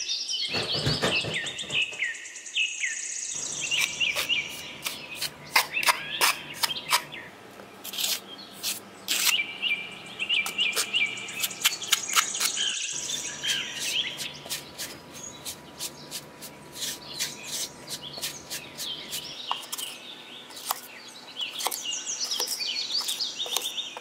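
Birds chirping and twittering, with many sharp little clicks and scrapes from a small metal trowel scooping sand and scattering it onto a plastic pond liner.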